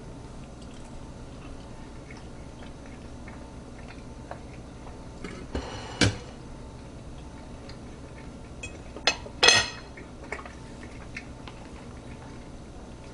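A few short clinks and scrapes of cutlery against a plate, the clearest about six seconds in and a pair a little after nine seconds, the last ringing briefly, over a low steady background hum.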